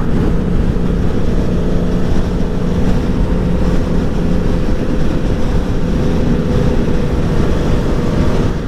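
Aprilia Tuono V4 1100 Factory's V4 engine running steadily at cruise under way, mixed with wind rush on the helmet camera's microphone.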